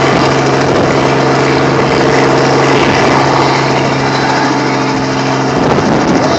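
Helicopter running loudly, a steady engine-and-rotor hum over rushing noise, with the hum dropping away about five and a half seconds in.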